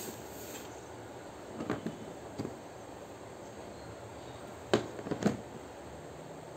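Hard plastic storage box and its lid knocking as they are handled: a few soft knocks, then two sharp clacks about half a second apart as the lid is set back on the box.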